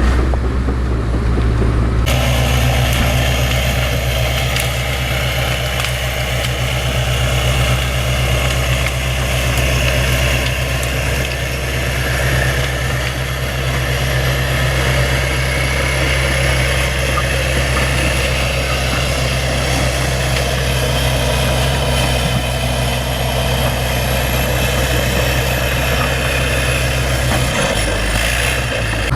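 Bulldozer's diesel engine running steadily with a constant low drone; the sound brightens abruptly about two seconds in.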